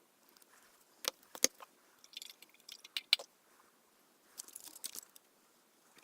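Light clicks and scratchy rubbing from hands working a plastic model kit and its weathering tools, in three short clusters, the sharpest clicks about a second in and near the middle.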